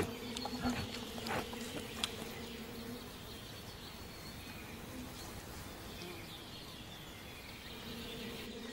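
Disturbed honey bees buzzing around a hive broken open by a bear, a steady droning hum. The drone grows fainter after about three seconds and comes back stronger near the end, with a few sharp clicks in the first two seconds.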